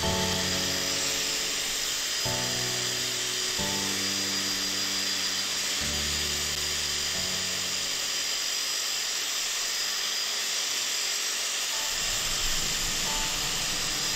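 Background music with held bass notes that change every second or two and thin out in the second half, over the steady whine of an electric polisher spinning a foam buffing pad with a metal lock pressed against it.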